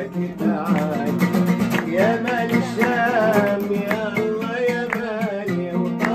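Oud playing a Middle Eastern melody with plucked notes, while a woman sings with wavering, ornamented vibrato. Hand clapping joins in near the end.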